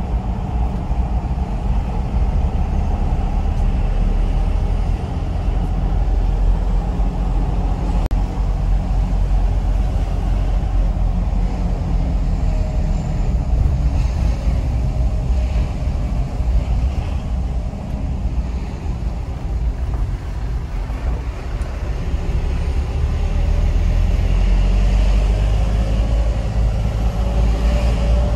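Minibus engine and tyre noise heard from inside the cabin while driving, a steady low drone that dips in the middle and grows louder about three-quarters of the way in.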